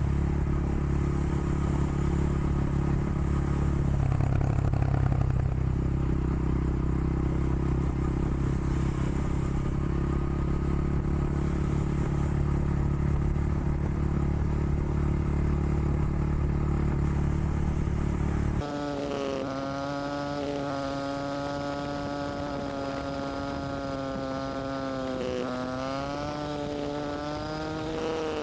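Honda XR100 Motard's small single-cylinder four-stroke engine running while riding, mixed with wind noise. About two-thirds of the way through, this cuts off abruptly and a steady humming tone with a few brief dips in pitch takes over.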